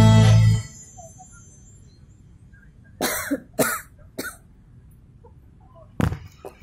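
Live band music stops abruptly less than a second in. Then three short coughs about half a second apart, and one more, heavier cough near the end.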